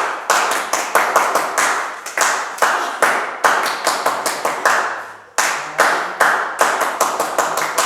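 Ritual hand clapping by a group of people, sharp claps in a steady rhythm with a brief break about five seconds in.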